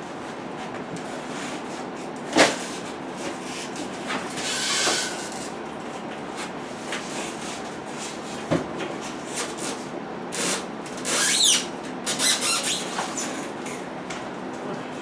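Packing being worked off a new refrigerator and freezer: a sharp knock, rustling scrapes, a second knock, then a cluster of scrapes with a brief falling squeak.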